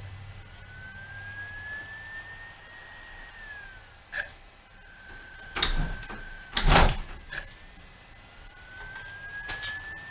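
A laptop's CD-ROM drive whining as it spins up, a tone that rises slowly and then falls away, holds steady, and rises again near the end, as the screensaver reads clip art off the disc. Several sharp knocks come in the middle, the loudest a pair about six and a half to seven seconds in.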